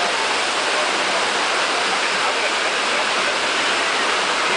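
Steady rush of water from a FlowRider wave machine: a thin sheet of pumped water racing up the padded ramp and churning into spray.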